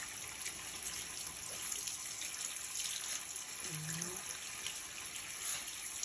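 Handheld shower head spraying a steady hiss of water onto a wet dog's fur in a bathtub as it is rinsed.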